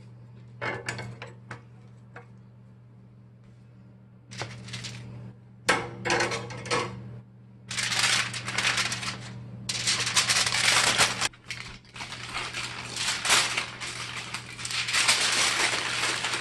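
Aluminum foil being crinkled and folded around a roast. A few sharp clicks and rattles come first, then from about eight seconds in long stretches of loud crackling rustle. A steady low hum runs underneath.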